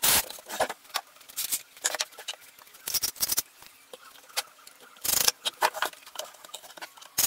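Wooden pallet boards knocking and scraping as they are handled and set down on a workbench: a run of short sharp knocks and clicks, with a brief burst of noise about five seconds in.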